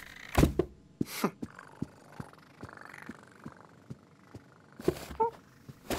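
Cartoon sound effects: a small cardboard box is knocked over with a sharp thump and a swish, followed by a run of light taps. Near the end a kitten gives a short, rising mew.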